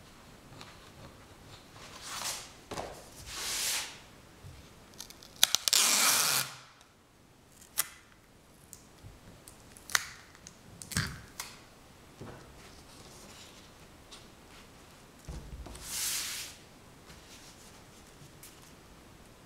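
Intermittent close-up handling noise: sharp clicks and short crinkly rustling swishes at irregular intervals, the loudest a rustle about six seconds in.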